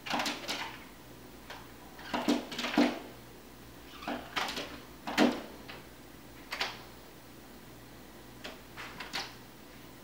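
Pileated woodpecker pecking and striking at its reflection in patio window glass: irregular sharp taps and knocks, some single and some in quick clusters, the loudest about five seconds in.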